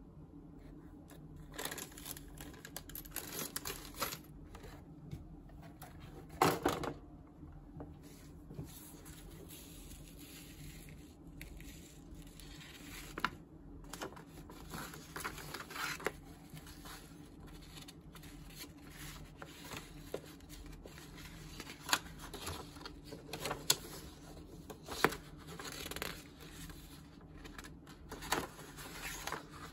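Plastic parts bags crinkling as they are handled, then the paper pages of a model kit's instruction booklet rustling as they are turned. Irregular rustles and light clicks, with a louder rustle about six seconds in.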